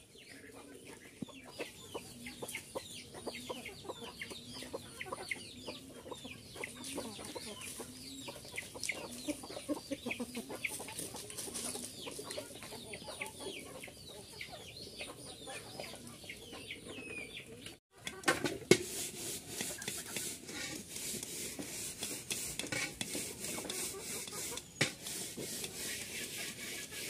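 Chickens clucking, with many short, high, falling chirps in quick succession. After a cut, a steady run of sharp taps as chickens peck rice from a metal bowl.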